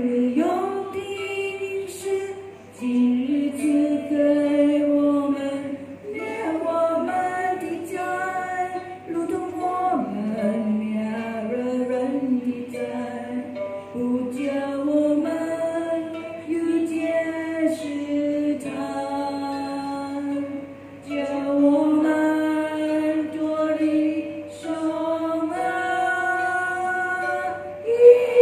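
Women's voices singing a slow worship song in Chinese, holding long notes in phrases, with plucked harp accompaniment.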